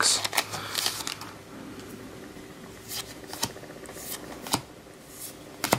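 Weiss Schwarz trading cards being flipped through by hand, one card slid off the stack at a time: short separate card flicks every second or so.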